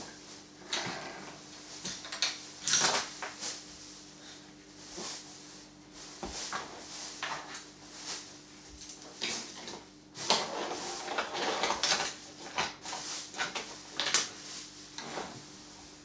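Wooden toy train track pieces and trains clacking and knocking as a child handles and rearranges them on a wooden floor. The clatter is irregular, loudest about three seconds in and again around ten and fourteen seconds in.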